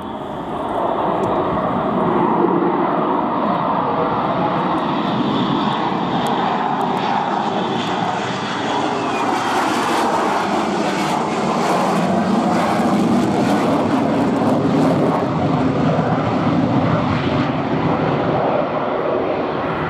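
Lockheed F-35B Lightning II jet fighter's single F135 turbofan engine. The jet noise swells about a second in and then holds loud and steady, with a stretch of crackling around the middle.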